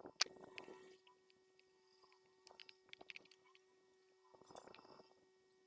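Faint handling noise from a plastic headphone earcup being turned and fitted by hand: a sharp click just after the start, soft rustling, and a few small ticks, with another rustle near the end.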